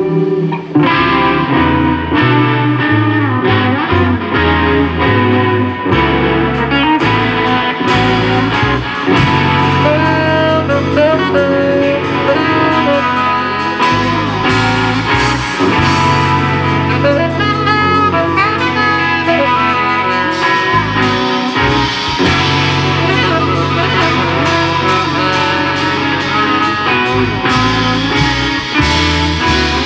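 Live jazz played by a quartet: a saxophone melody over guitar, bass and drum kit, with long held bass notes underneath.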